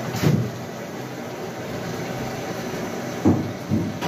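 Steady rushing hiss of keema frying in a karahi over a gas-cylinder burner. One knock comes just after the start and two more a little after three seconds.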